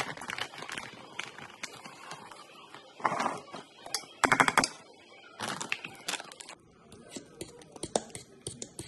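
Food packaging crinkling and rustling as it is handled and opened, in several short bursts. Near the end come light clicks of a fork stirring dry and wet muffin ingredients in a bowl.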